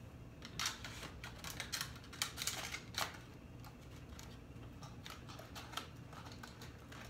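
A small cardboard box and its plastic packaging being handled and opened by hand: a run of crackling rustles and sharp clicks through the first three seconds, then quieter fiddling.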